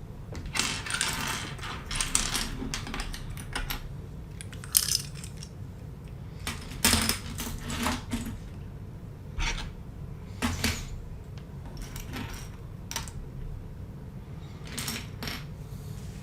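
Plastic LEGO pieces clicking and rattling as they are handled, in irregular clusters of small clacks, over a steady low hum.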